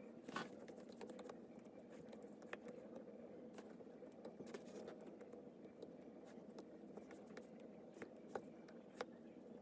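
Faint, irregular taps and light scratches of a stylus tip on a tablet's glass screen, a sharper tap about half a second in and two more near the end, over a low steady background noise.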